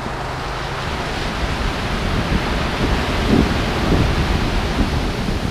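Waves breaking and washing up a pebble beach, the surf swelling to its loudest about three to four seconds in, with wind buffeting the microphone.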